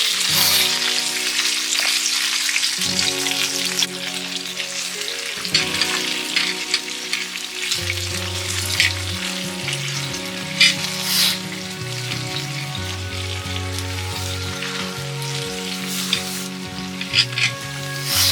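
Food sizzling and crackling as it fries in a pan, with a few sharp pops, over background music with held bass notes.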